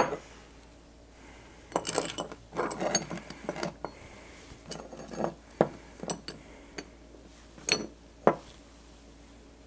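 Irregular metal clinks and clicks of bolts, nuts and fabricated metal engine mounts being handled and fitted to a small single-cylinder engine's crankcase, with a few sharper knocks in the second half.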